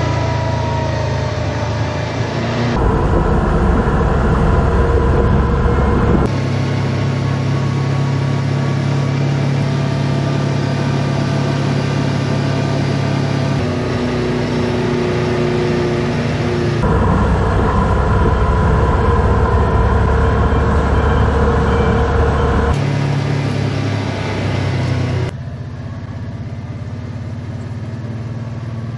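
Side-by-side UTV engine running as the machine drives slowly, heard from on board. The engine note falls near the start, and the sound shifts abruptly several times.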